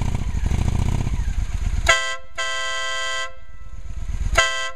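Wolo air horn on a 2003 Honda Shadow ACE 750 motorcycle sounding a short toot followed at once by a blast of about a second, then another short toot near the end. Under it the bike's V-twin engine runs at idle.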